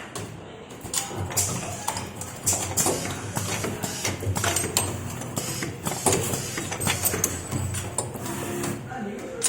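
Six-station automatic soldering machine running: irregular mechanical clicks and knocks with bursts of hiss over a low steady hum.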